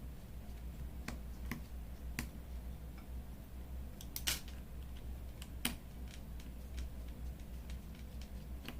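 Scattered small, sharp clicks and taps of a precision screwdriver and small tools on a smartphone's tiny screws and frame as the screws are taken out, the loudest pair about four seconds in, over a faint low hum.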